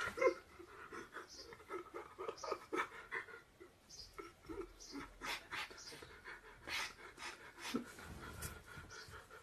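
A person sobbing: a run of short, gasping breaths broken by brief high whimpers, several a second.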